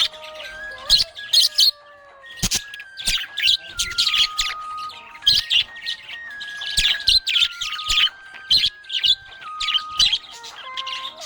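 Budgerigar chirping and chattering in quick, busy bursts of short high chirps, over a soft background melody of long held notes.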